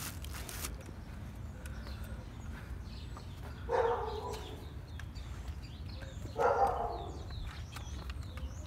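Two short animal calls about two and a half seconds apart, over a low steady background hum.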